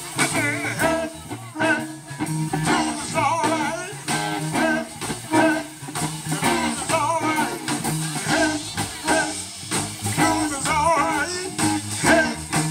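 Live blues band playing: a conch shell blown for a wavering, bending lead line over electric guitar and drums.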